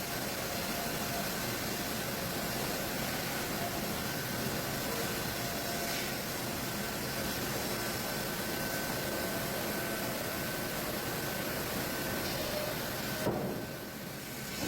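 Sawmill machinery running: a steady, even mechanical din with a faint thin whine. It drops abruptly about 13 seconds in, then picks up again.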